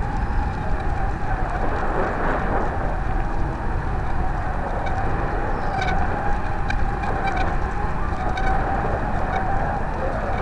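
Wind rushing over the microphone of a small camera carried aloft on a kite, with a steady, slightly wavering drone throughout, which the uploader takes for an ice cream truck. A few faint high chirps come through in the second half.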